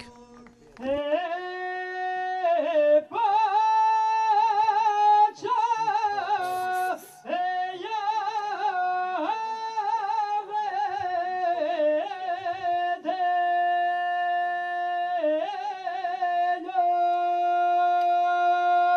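A man singing a northern Albanian highland song in the hand-to-ear style (këngë majekrahi), into a microphone. It is a single high solo voice holding long, wavering notes, with short breaks between phrases.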